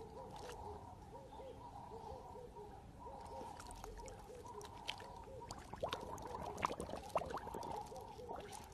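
Siberian husky making a quick run of soft, short, whining calls over and over while it plays at the water's surface, with a few sharp splashes and snaps of water in the second half as it bites or laps at the water.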